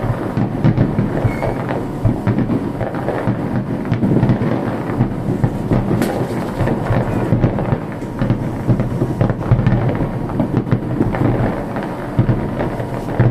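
Aerial fireworks bursting in quick succession. The booms blend into a continuous rumble, with many sharp cracks and pops throughout.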